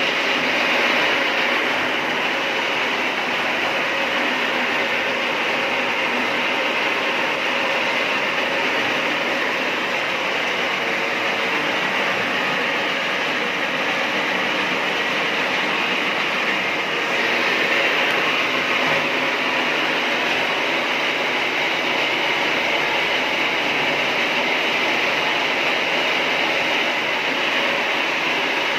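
Homemade rotisserie chicken machine running, a steady mechanical noise with a slight swell partway through.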